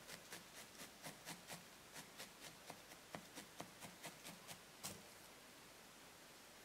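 Multi-needle felting tool stabbing repeatedly into wool against a work pad: faint, quick pokes about four a second that stop about five seconds in.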